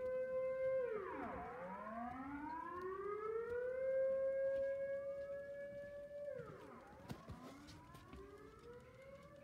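Dutch civil-defence warning siren sounding its monthly test signal: a wailing tone that holds, then swoops steeply down and climbs back up, twice, growing fainter toward the end.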